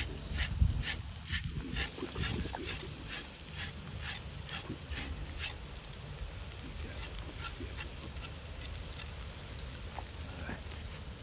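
A carrot being cut up by hand: a run of quick, even scraping strokes, about two or three a second, that stops about five and a half seconds in, followed by a few lighter strokes.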